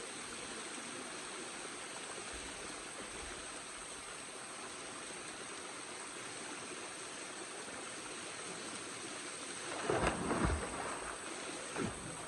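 Steady rush of water from a spring-fed waterfall. A few short low bumps hit the microphone near the end.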